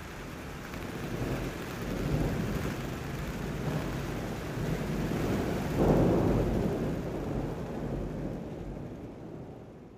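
A rumbling, hissing noise like thunder with rain, swelling to its loudest about six seconds in and then fading out toward the end.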